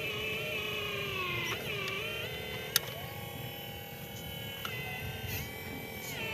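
Small electric motors of radio-controlled construction models whining steadily, their pitch sliding down and stepping up several times as they speed up and slow down. There is one sharp click about three seconds in.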